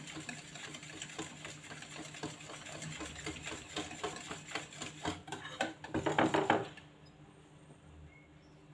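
Pancake batter being beaten by hand in a ceramic dish: quick, rhythmic clicking and scraping of the utensil against the dish, which stops about seven seconds in.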